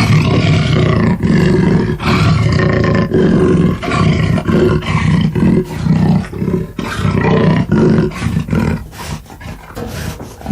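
Designed dinosaur roar sound effect for a Megalosaurus, layered from dragon roars and big-cat roars and growls (jaguar, tiger, leopard): a run of deep growling roars, each about a second long, that break up into shorter, quieter growls near the end.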